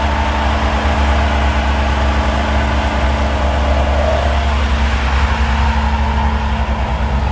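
Chevrolet Silverado HD pickup doing a burnout: its engine is held at steady high revs while the rear tyres spin against the road. It makes a loud, unbroken rumble and hiss that keeps the same pitch.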